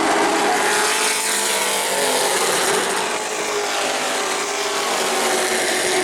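A field of short-track race trucks running at speed on the oval, many engine notes overlapping and gliding up and down in pitch as they pass.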